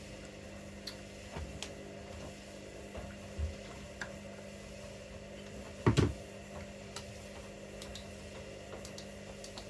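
Two front-loading washing machines running early in a wash cycle: a steady hum with scattered light clicks, and one loud thump about six seconds in.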